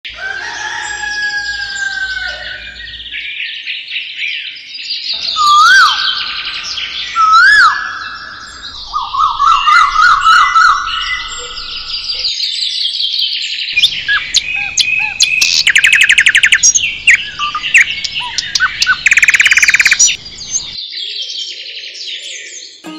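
Birdsong from several songbirds: chirps, rising whistles and fast trills, in stretches that start and stop abruptly, as if pieced together from separate recordings.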